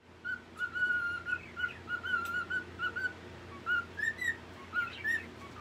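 Pet cockatiel whistling a run of short, clear notes, mostly held at one pitch, with a few quick rising notes near the end.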